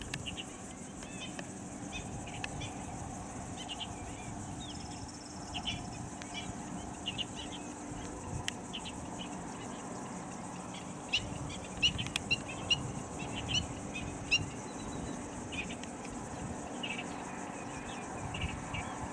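Outdoor ambience of insects and birds: a steady high insect buzz, with short bird chirps coming every second or so. A few sharp clicks are loudest a little past the middle.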